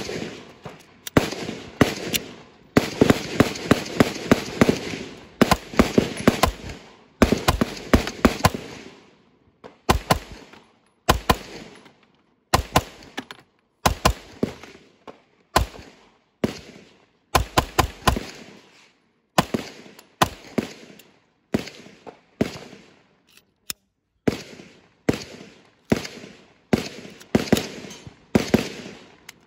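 Pistol shots from a 9mm Glock-pattern handgun built on an 80 Percent Arms GST-9 80% frame. The shots come in quick strings at first, then single shots roughly a second apart, each sharp crack followed by a short echo.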